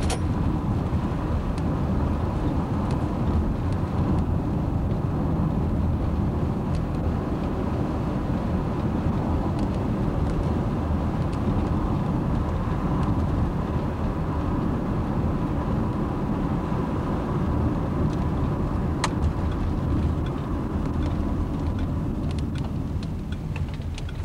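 Steady rumble of a car driving, heard from inside the cabin: engine and tyre noise, with a single sharp click about three quarters of the way through.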